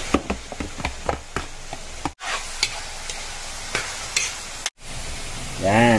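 Slotted metal spatula scraping and clicking against a wok while ground beef and sliced hotdogs are stirred, over a steady sizzle of frying. The sound cuts out completely for a moment twice.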